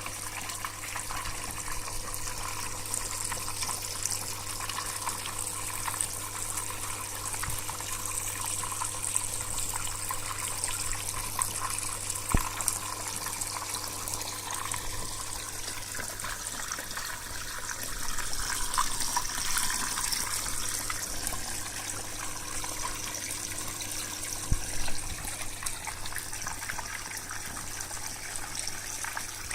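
Steady rush and splash of flowing water, the current the koi swim against, with a low steady hum underneath. Two brief knocks, about twelve seconds in and near the end.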